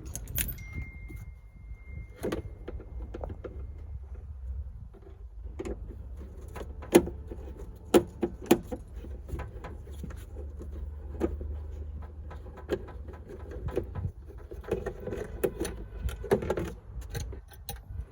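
Hand tools and metal parts clinking and knocking during car repair work: a string of sharp clicks and clanks, the loudest a few hits around seven to eight and a half seconds in, over a low steady rumble.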